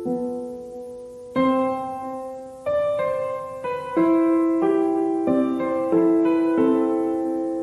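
Slow, gentle piano background music: a new chord struck about every second and a quarter, each left to ring and fade.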